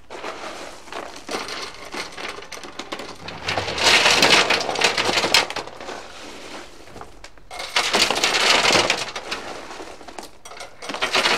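Driveway gravel, #57 stone mixed with asphalt chunks, scooped by hand and poured into a rusty 1965 Ford Falcon van's steel gas tank, rattling and crunching in three loud bursts about four seconds in, eight seconds in and near the end, with lighter scraping of stone between. The gravel is the scouring charge meant to knock the rust loose inside the tank.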